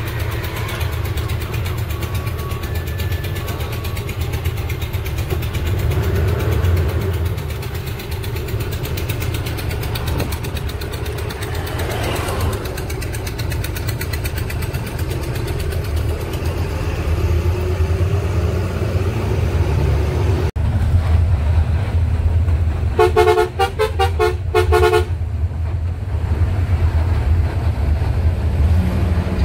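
Truck running on the road with a steady low engine and road rumble. About 23 seconds in, a horn gives a quick series of short, multi-toned blasts.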